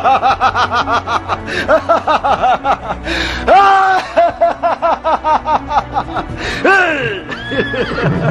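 A horse whinnying: a long shaky neigh of rapid rising-and-falling notes for about three seconds, then further neighs with separate high calls near the middle and twice near the end. Background music plays underneath.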